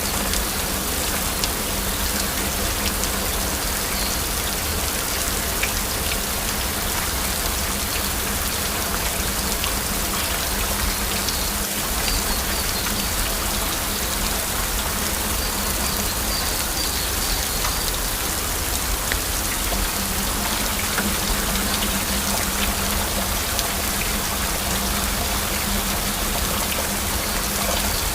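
Heavy rain falling steadily: a dense, even patter of drops with scattered sharper drips.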